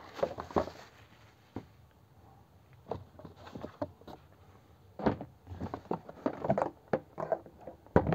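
Cardboard box being opened by hand: an irregular string of short rustles, scrapes and knocks as the flaps and packaging are handled.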